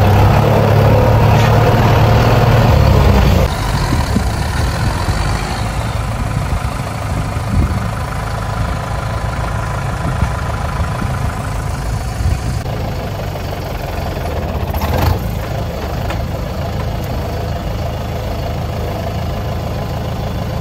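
Farm tractor's diesel engine running steadily while driving, heard from the driver's seat. It is louder and deeper for the first three and a half seconds or so, then drops to a lower, even level, with a few light knocks along the way.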